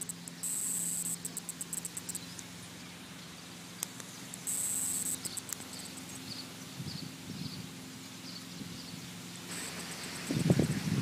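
Quiet outdoor ambience: a faint steady low hum, with several short, high, rapidly clicking buzzes, one near the start, one about four and a half seconds in, and one near the end.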